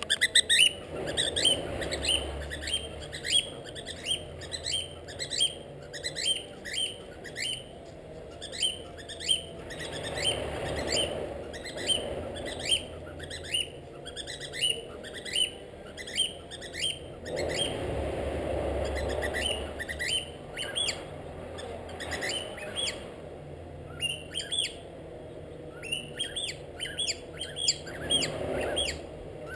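Cockatiel chirping over and over, short falling calls at about one to two a second with brief pauses. A low rumble swells and fades several times underneath.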